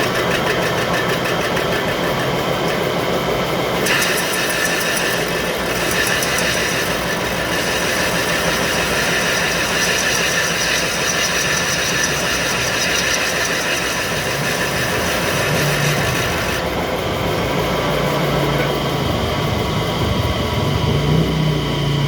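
A machine running steadily with a continuous mechanical noise. A harsher, hissing layer joins in about four seconds in and drops away about two-thirds of the way through.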